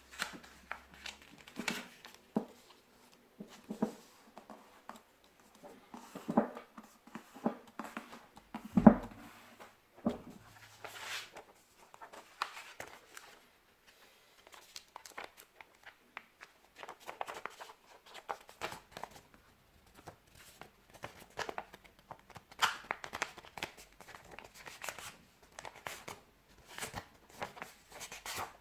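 A sheet of paper being folded and creased by hand, with irregular crinkling and rustling and a louder knock about nine seconds in.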